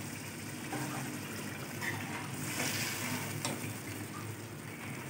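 Chicken curry, with milk just poured in, simmering in a metal pot while a metal spoon stirs it, with a few light scrapes and clinks of the spoon on the pot.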